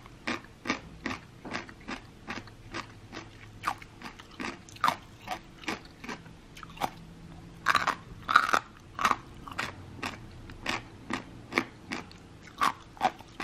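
Someone biting and chewing crisp beet-and-radish kkakdugi (cubed kimchi), a crunch about two or three times a second. A cluster of louder crunches comes a little past the middle.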